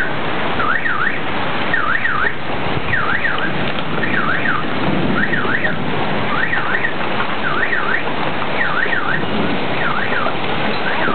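A car alarm sounding a repeating warble, about one cycle a second, over the steady noise of heavy rain mixed with hail.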